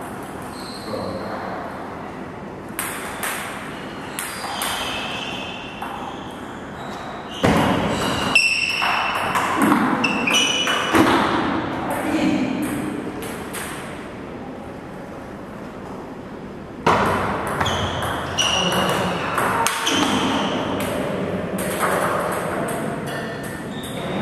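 Table tennis ball clicking off the paddles and the table during rallies, each hit with a short high ping. The hits come in two stretches, the second starting after a pause of a few seconds.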